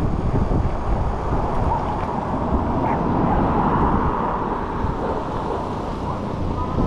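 Wind buffeting the microphone of a camera riding on a moving e-bike, a steady rush with gusty low rumbling, under the road noise of the bike rolling on asphalt.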